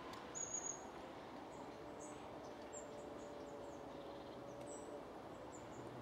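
Small birds calling with high, thin notes: a quick cluster of louder notes about half a second in, then scattered single notes, over a steady outdoor hiss.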